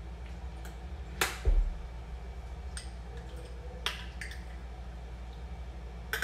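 Scattered clicks and clinks of kitchen utensils and dishes, with a sharper knock and a heavy thump about a second and a half in, over a steady low hum.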